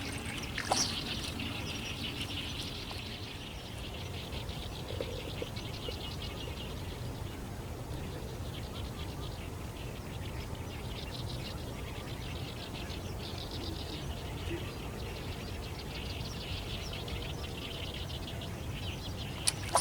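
Outdoor waterside ambience: high, rapidly pulsing chirps from small creatures come and go in patches over a steady low rumble. There is a short click just under a second in and another near the end.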